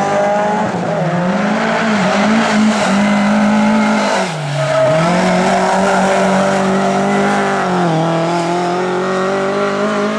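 Lada race car's four-cylinder engine running hard at high revs. The engine pitch dips briefly about four seconds in and again near eight seconds, then climbs back.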